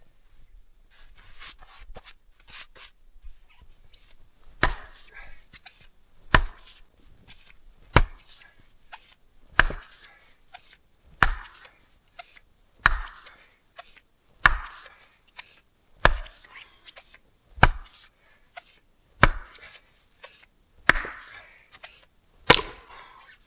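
An axe chopping into a log: a few light taps, then a steady run of twelve hard blows about one every second and a half.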